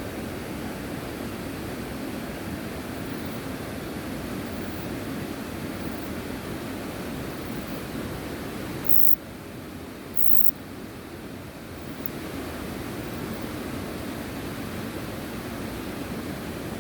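Steady hiss of background noise that drops a little in level for about three seconds midway, with two brief faint clicks there.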